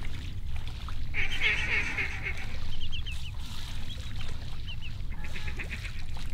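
Duck calling: bursts of fast, chattering quacks, the first about a second in and more near the end, with short high whistled peeps in between.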